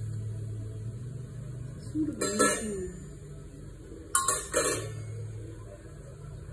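Metal kitchenware clinking and clattering in two short bursts, about two seconds in and again about four seconds in, over a low steady hum.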